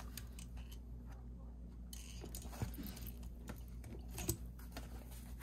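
Faint clicks and rustling as hand-held eyelet-setting pliers are worked on the edge of a paper journal cover, the sharpest click about four seconds in, over a steady low hum.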